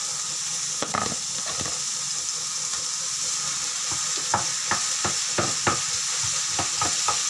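Minced beef sizzling in a hot frying pan with oil, onion and garlic, with a knock about a second in. From about four seconds on, a spatula scrapes and taps the pan over and over as the beef is broken up and stirred.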